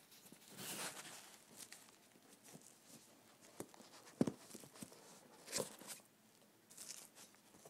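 Handling of the iPad's retail packaging as it is opened: a brief rustle near the start, then scattered light taps and knocks, with one sharper knock about four seconds in.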